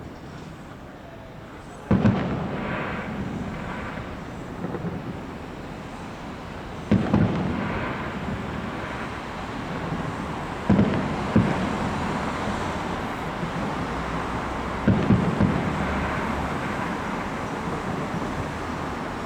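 Fireworks shells bursting overhead: loud sharp bangs, one at a time and then two and three in quick succession, each followed by a long rolling echo, with fainter crackling after some bursts.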